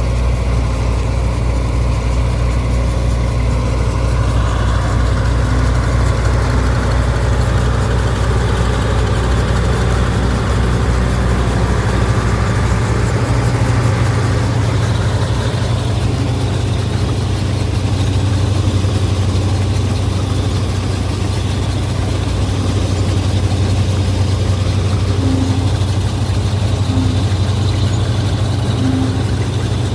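Combine harvester's diesel engine running with a steady, low, even drone.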